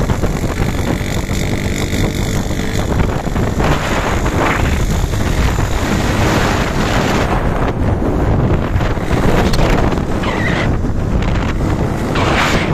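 Wind buffeting the microphone of a moving bike on a paved road, loud and steady with gusty swells. A faint hum runs underneath for the first few seconds.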